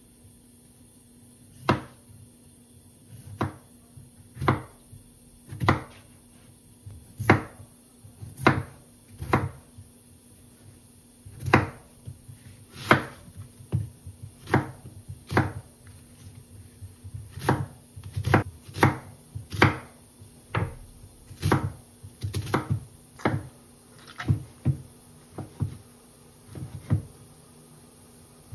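Kitchen knife chopping potato and then onion on a wooden cutting board: single sharp knocks of the blade on the board, unevenly spaced about a second apart, sometimes two in quick succession.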